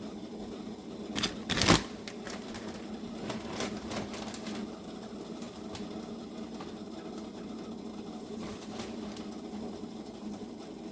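Battered pickles frying in hot grease: steady sizzling and crackling of the oil, with two sharp clattering knocks a little under two seconds in.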